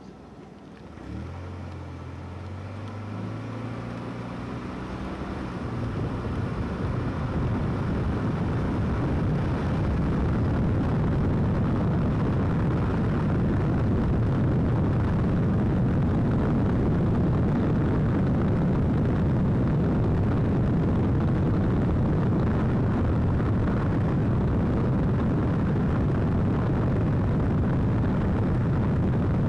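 Car engine pulling away, rising in pitch over the first couple of seconds, then wind buffeting a microphone with no windscreen, mixed with road noise. The rush builds over about ten seconds to a loud, steady rumble as the car cruises.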